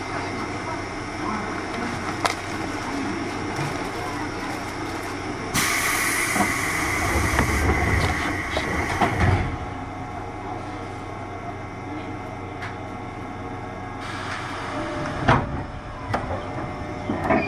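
Interior sound of a JR 201-series electric train, recorded in a MoHa 200 motor car: steady rumble of the car on the rails. About five seconds in, a louder hiss with a high tone rises over it for about four seconds. A few sharp clicks follow near the end.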